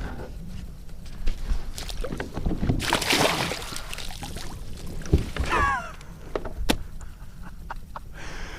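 Water splashing and knocks against a kayak's hull as a caught redfish is handled at the boat, with a short falling squeal about midway.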